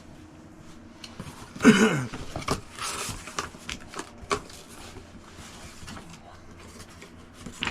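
Box and packing being handled: rustling, knocks and clicks, with one short pitched sound that falls in pitch near two seconds in.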